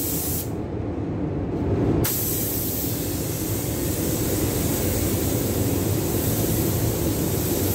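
Compressed-air spray gun spraying primer: a short burst of hiss at the start, then a steady hiss from about two seconds in as the trigger is held. A low steady rumble runs underneath.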